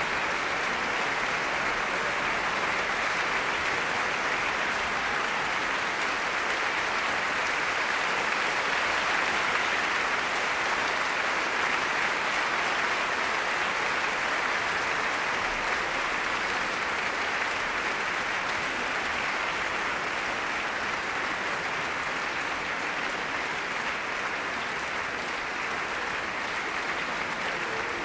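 Large audience applauding, a steady, even sustained clapping that holds at the same level throughout.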